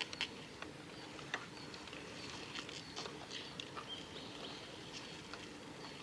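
Woodland ambience: small birds give brief high chips among scattered light ticks, over a faint steady low hum.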